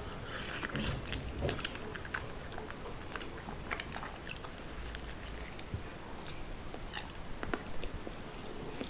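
Close-up eating sounds: a person biting and chewing food, with irregular short crisp clicks and smacks.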